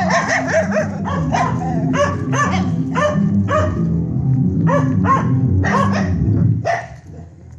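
A dog barking over and over, about two to three barks a second, with low music underneath; the barking stops about seven seconds in.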